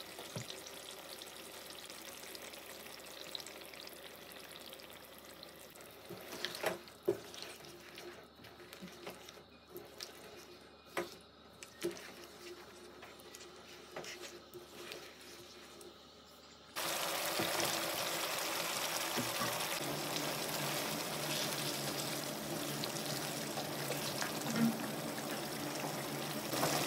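Mutton curry cooking in a nonstick pan: a spatula scrapes and knocks against the pan in the middle stretch. About two-thirds through, a louder steady hiss of liquid starts suddenly and runs on.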